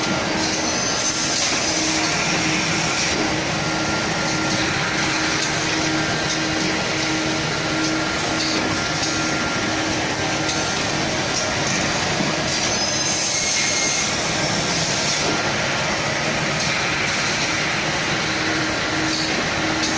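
Automatic facial-tissue bag-packing machine running steadily, a continuous mechanical noise with a low tone pulsing on and off. A brief high whine comes in twice, near the start and about two-thirds of the way through.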